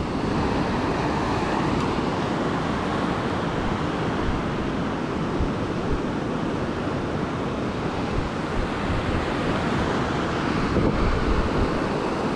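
Surf washing steadily onto the beach, with wind buffeting the microphone.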